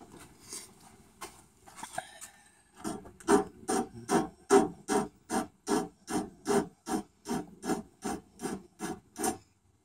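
Rapid back-and-forth hand strokes of an abrasive tool on steel, about three a second, deburring the sawn-off end of a double-barrel 12-gauge shotgun's barrels to take off the sharp edges. A few faint scrapes come first; the steady stroking starts about three seconds in and stops just before the end.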